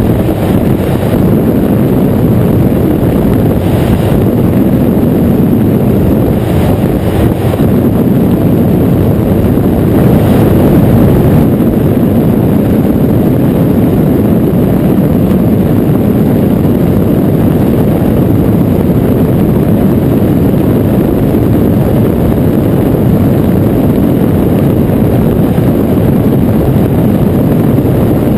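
Flex-wing microlight trike in cruise flight: its engine and propeller drone steadily, with wind rushing over the open cockpit and the microphone.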